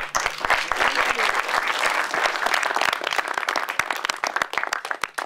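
Audience applauding: dense clapping that thins out and trails off to a few last claps near the end.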